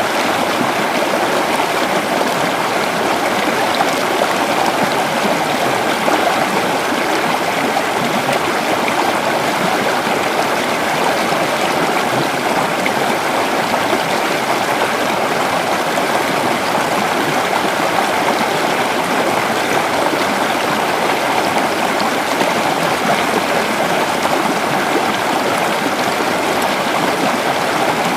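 Creek water flowing steadily over rocks, a continuous babbling and rushing with no breaks.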